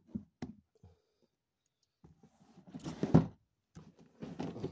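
Cardboard box and packaging being handled and shifted: a few light knocks, then two stretches of rustling and scraping, with a thump about three seconds in as the box is moved.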